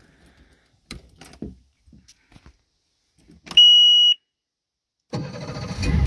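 A few light clicks, then the outboard's warning horn gives one steady high beep of about half a second as the ignition key is turned on, and about five seconds in the outboard motor cranks, starts and runs. It starts now that the missing kill-switch clip is back on the stop switch.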